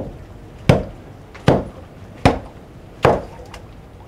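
Hand tool striking the base of a brick wall: five hard blows, each ringing briefly.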